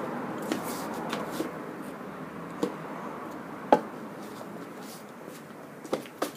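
Scattered soft knocks and taps over a steady background hiss, the loudest a little under four seconds in, with two more close together near the end. They come from footsteps in sandals on wooden decking and from large plastic garden chess pieces being handled.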